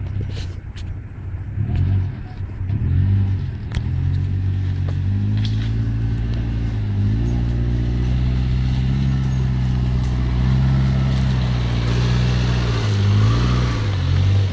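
Off-road 4x4's engine pulling under load, its note rising about five to seven seconds in, holding high, then dropping near the end. A few sharp clicks sound in the first four seconds.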